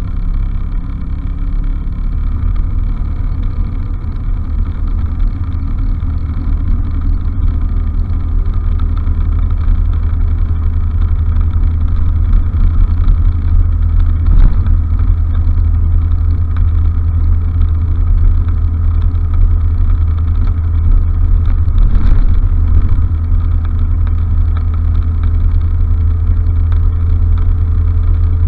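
Honda Fusion 250 scooter on the move: its single-cylinder engine and road noise run under a heavy low rumble. The sound builds gradually louder over the first ten seconds or so, then holds steady.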